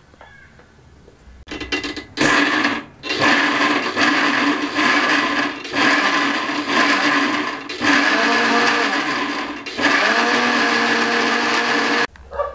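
Electric mixer-grinder with a small steel jar grinding roasted hemp seeds, tomatoes, garlic, ginger and chillies into a pickle paste. It starts with a couple of short bursts, then the motor runs in long spells with brief pauses between, stopping near the end.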